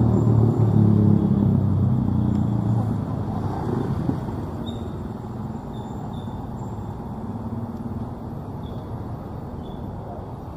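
A motorcycle engine passing close by, fading away over the first three seconds, then the steady rumble of slow-moving city road traffic.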